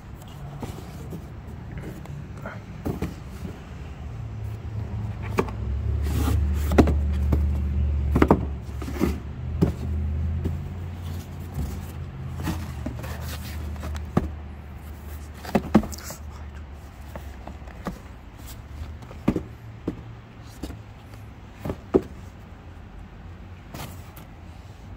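Cardboard Priority Mail boxes being handled and turned over, giving scattered sharp taps and knocks. A passing vehicle's low engine rumble swells a few seconds in and fades away again.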